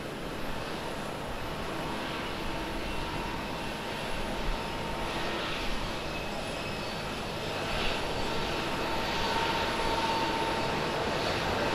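Airbus A320 jet airliner touching down and rolling out on the runway, a steady jet engine noise that grows louder in the second half, with a faint whine near the end.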